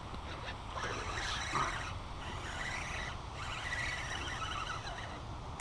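Spinning reel being cranked to bring in a hooked fish, a whirring that comes and goes in spells, over a low rumble of wind on the microphone.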